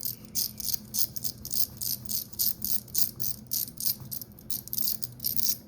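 Number wheels of a combination padlock being turned by hand, clicking from one detent to the next in a quick, even run of about four to five small, sharp clicks a second, as the combination is scrambled.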